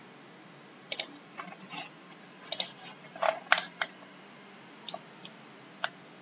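Irregular sharp clicks of a computer mouse and keyboard, about ten over six seconds, some in quick pairs, over a steady low hiss.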